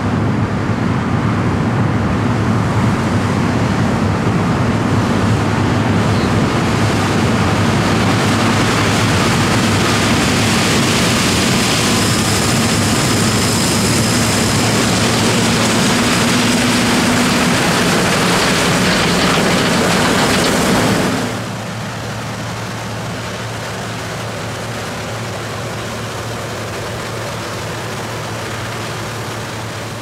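Harvest machinery running steadily: an engine hum under a loud, even rush of mechanical noise. About two-thirds of the way through the sound drops abruptly and the hiss cuts out, leaving a quieter steady engine hum.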